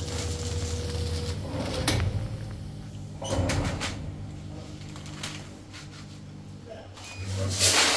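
Automatic pouch packing machine running: a steady low motor hum with a few clacks and clunks from its mechanism, and a louder rushing clatter near the end.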